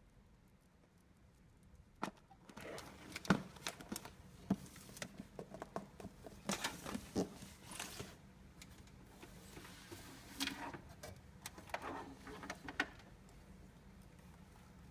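Small clicks, taps and rustling of hands working on a power supply's plastic connector and its wires, starting about two seconds in and stopping near the end.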